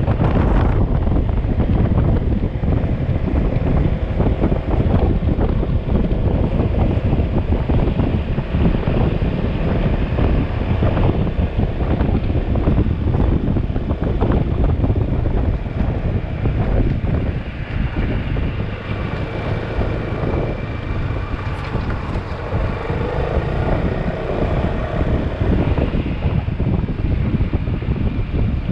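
Heavy wind buffeting on the microphone of a moving motorcycle, with the engine running underneath. About two-thirds of the way through the wind eases a little and a steady engine note comes through more clearly.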